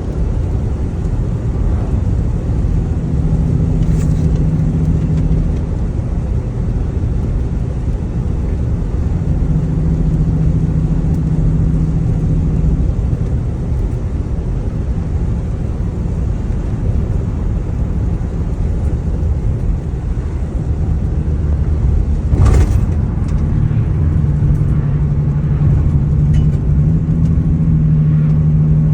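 Car driving, heard from inside the cabin: a steady low road rumble, with an engine hum that swells in and out several times. A single short knock comes about three quarters of the way through.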